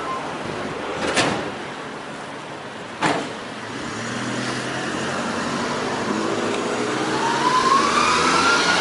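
Toyota HiAce van driving past at close range, its engine rising in pitch and getting louder as it speeds up. Two sharp knocks come before it, about one and three seconds in.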